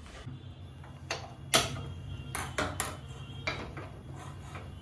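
A metal kadai (wok) being handled on a gas stove's pan support: a series of sharp clanks and taps, the loudest about a second and a half in, over a low steady hum.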